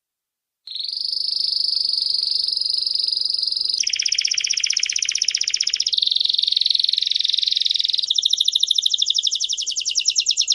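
Belgian canary singing: starting abruptly a little under a second in, a continuous high-pitched song of trills, each held about two seconds before switching to the next, ending on a fast rattling trill.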